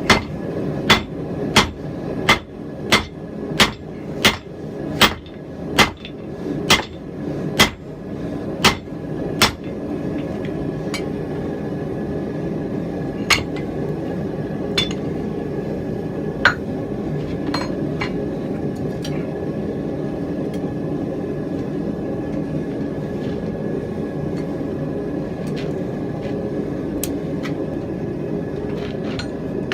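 Hammer blows on hot steel at the anvil, about three strikes every two seconds for the first ten seconds, then stopping. After that a steady background rush continues, with a few scattered metallic clinks.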